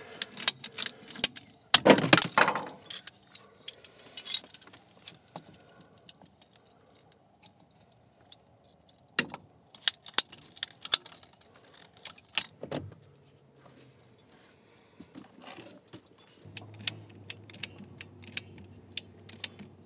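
PEX tubing snipped with a hand PEX cutter about two seconds in, followed by scattered metallic clicks and clinks of hand tools and brass fittings being worked. A low steady hum starts near the end.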